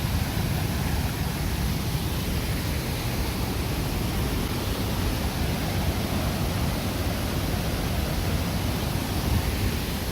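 Pecca Falls on the River Twiss in spate, a torrent of water cascading down the rocks in a steady, loud rush; the river is swollen after rain.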